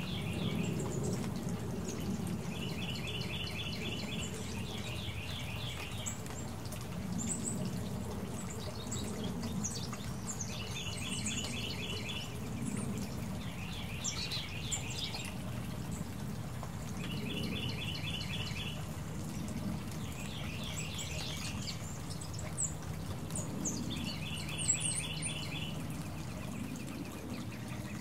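Songbird singing short phrases of rapidly repeated notes, a phrase every three to four seconds, alternating between an even-paced rolling phrase and a quicker falling one, over steady low background noise.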